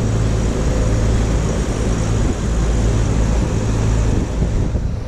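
Motor yacht's engines running steadily under way, a low hum under a constant rush of wind and water along the hull.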